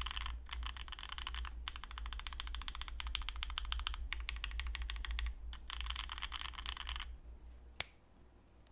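Fast typing on a mechanical keyboard with stock Gateron Oil King linear switches on a foamed steel plate with GMK keycaps, the keystrokes coming in quick runs with brief pauses. The typing stops about seven seconds in, followed by a single sharp click near the end.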